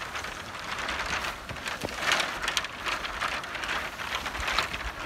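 A bundle of malingo bamboo stems scraping and rustling as it drags over grass and dirt, with many small clicks and clatters from the stems knocking together.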